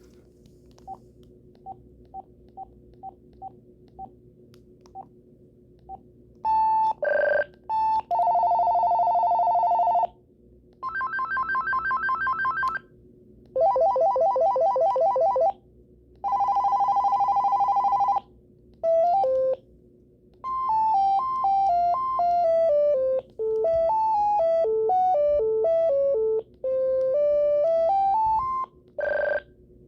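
AT&T CL82215 DECT 6.0 cordless phone previewing its ringtones: a run of short keypress beeps, then several electronic warbling and trilling ring patterns of about two seconds each with short gaps between them. Near the end comes a longer melody of stepping notes that fall and then rise again.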